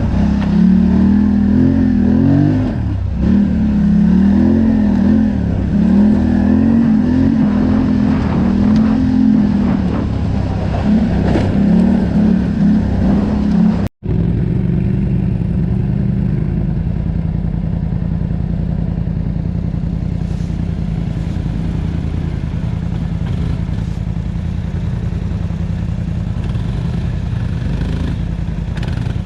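ATV engine running on a trail ride. For the first half the throttle is opened and eased repeatedly, so the engine note rises and falls in quick waves. After an abrupt cut about halfway through, it runs at a steadier, lower speed.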